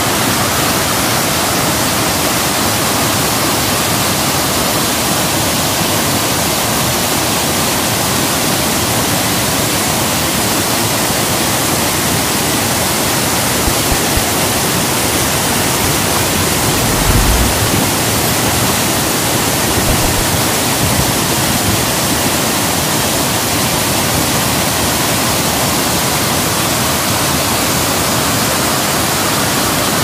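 Steady rush of a rain-swollen river pouring in white rapids over the edge of a low concrete causeway bridge. A few brief low bumps sound near the middle.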